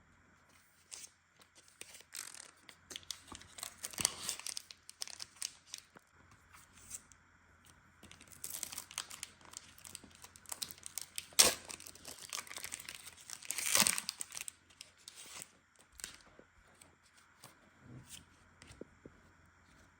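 Foil booster pack wrappers of Pokémon trading cards being torn open and crinkled, in scattered rustles. The loudest moments are a sharp rip about eleven and a half seconds in and a longer crinkle near fourteen seconds.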